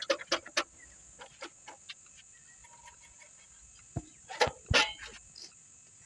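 Scattered sharp metal clicks and knocks from work on a bicycle's rear wheel and axle nut with a spanner: a few near the start, then a louder cluster about four to five seconds in.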